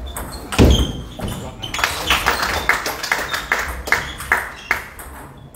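Table tennis ball clicking off bats and the table in a rally, with a heavier thump about half a second in, then a quick run of sharp ball taps.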